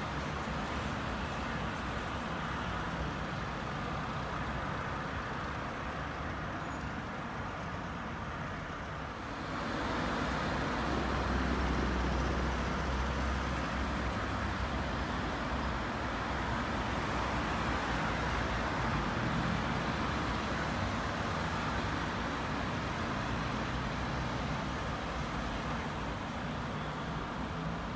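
City road traffic: a steady wash of passing cars. About a third of the way in it swells louder with a deep rumble.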